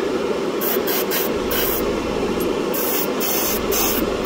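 Airbrush spraying paint in short hissing bursts as the trigger is worked on and off, over a steady low hum.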